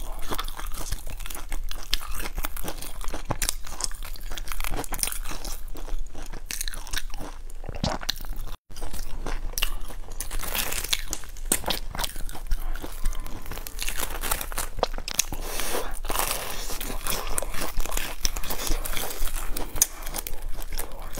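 Close-miked biting and chewing of crisp, breadcrumb-coated fried buns, with dense, irregular crackling crunches of the crust. The sound cuts out completely for a moment about eight seconds in.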